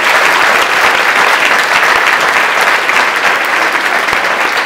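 Audience applauding: many hands clapping loudly and steadily.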